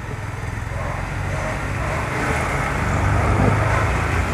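Road traffic noise: a steady motor-vehicle rumble that grows gradually louder.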